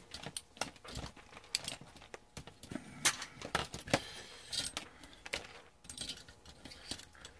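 A soldering iron's cord and round metal plug being handled and dragged across a workbench, giving irregular light clicks and rattles.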